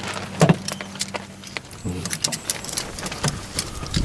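Light metallic clicks and clinks of small metal parts and wire clips being handled, in quick irregular ticks.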